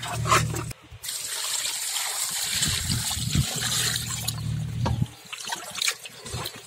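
Cut murrel fish pieces being rinsed in a steel pot: a brief wet squelch of hands working the fish at the start, then water poured from a steel vessel splashing into the pot for about three seconds, then quieter swishing and splashing as hands stir the pieces in the water.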